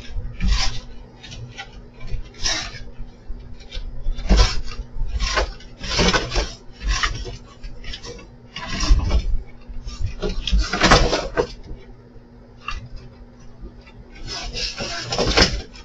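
Scuffle between a cat and a coyote on a wooden porch deck: a string of short rustling, scraping bursts and dull bumps, irregularly spaced, over a faint steady hum.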